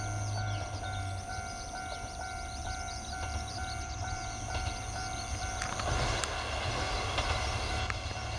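Kanto Railway Joso Line diesel railcar approaching: its low rumble grows about six seconds in, with a few sharp rail clicks, over a steady ringing that pulses about twice a second.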